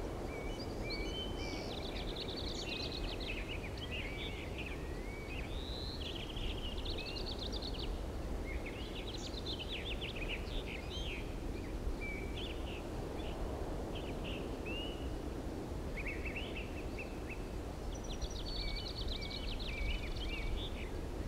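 Outdoor ambience: several songbirds chirping and calling on and off, with short rising whistles, over a steady low background noise.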